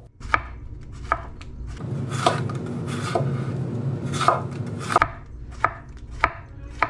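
Chef's knife slicing yellow squash into rounds on a wooden cutting board: a sharp knock of the blade against the board about once a second, slightly uneven.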